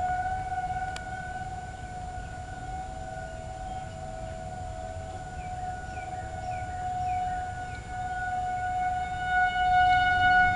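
Federal Signal 2001-SRN rotating outdoor warning sirens sounding a tornado warning: a steady single-pitch wail that slowly swells and fades as the siren turns, loudest near the end. A second, slightly lower siren tone from another siren sounds faintly beneath it.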